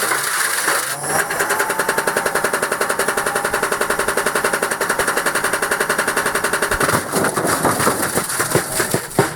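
Beko washing machine being run to destruction: the motor whine rises and then holds while the drum bangs hard, fast and evenly, about ten knocks a second. After about seven seconds the knocking turns irregular.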